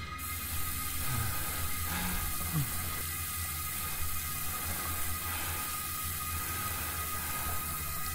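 Water tap running into a sink, a steady hiss of water that starts and stops sharply.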